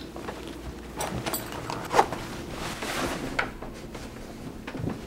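Scattered rustling and a few short clicks and knocks over a faint steady room hum, the sharpest click about two seconds in.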